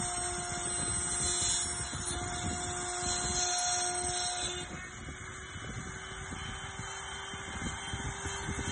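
CNC router spindle running with a steady whine while the cutter mills into a wooden cylinder turning on the rotary axis, with rough cutting noise underneath. The pitch of the whine shifts about halfway through and then holds steady.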